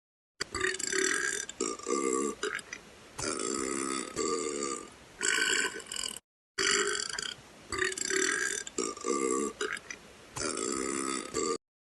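A young woman burping over and over, a string of long pitched belches with short pauses between them. The run breaks off briefly about six seconds in, and the second half closely repeats the first.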